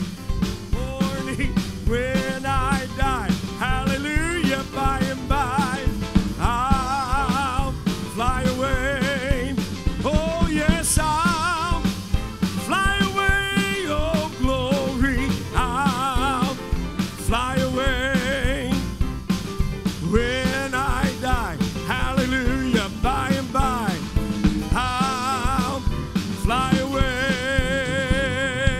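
Upbeat music with a steady driving beat and a wavering lead melody line.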